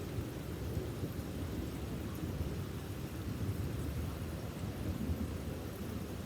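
Heavy rain and strong wind, heard as a continuous dense rush dominated by a steady low rumble.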